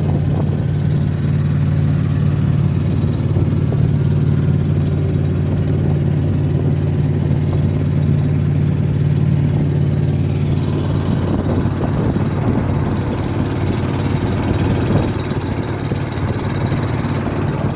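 Boat engine running steadily with a constant low hum. From about ten seconds in, a rougher rushing noise is added on top.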